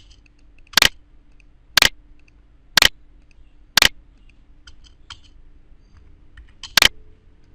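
Sharp computer mouse clicks, about one a second: four in a row, a pause of about three seconds, then one more near the end, with a few faint softer ticks in between.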